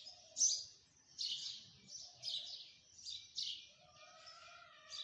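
Small birds chirping, short high chirps repeating about once a second, with a faint steady tone coming and going underneath.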